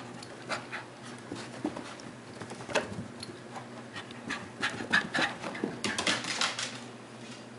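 Scottish terrier panting in short, quick breaths, coming thicker and louder from about four and a half to six and a half seconds in.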